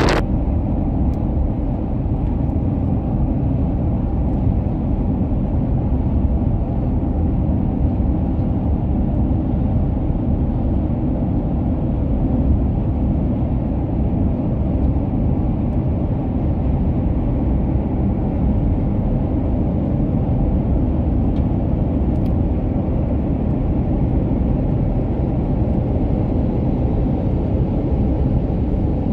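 Steady low rumble of highway driving: tyre and engine noise from a moving vehicle running alongside semi trucks, with no distinct events.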